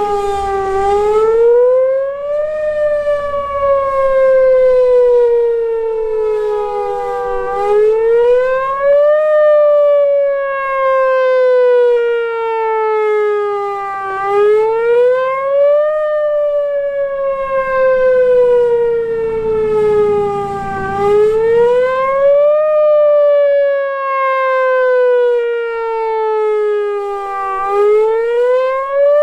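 Whelen Vortex outdoor warning siren sounding a wail for its weekly test. The pitch climbs quickly, then slides down slowly, in a cycle that repeats about every six to seven seconds.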